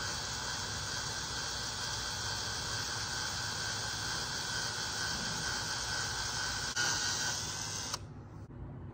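Power drill with a 13/64 bit running steadily with a whine as it drills into a skateboard truck baseplate clamped in a vise, boring the pilot hole for a 1/4-20 tap. It gets briefly louder near the end and then stops suddenly.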